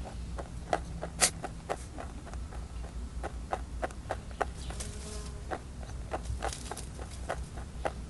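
European rabbit crunching and chewing dry feed pellets: an irregular run of small crisp clicks, several a second, the sharpest about a second in. A low steady rumble lies underneath.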